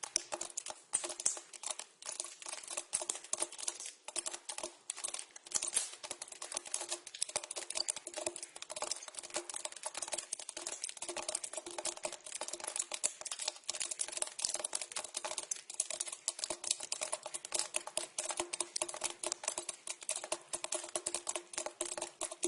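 Water dripping into a pipe: a dense, irregular patter of drops, many a second, over a steady low resonance from the pipe.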